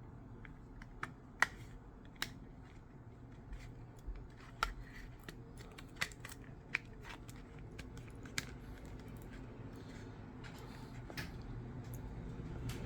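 Scattered light clicks and taps, about a dozen at irregular intervals, from a phone and small repair tools being handled.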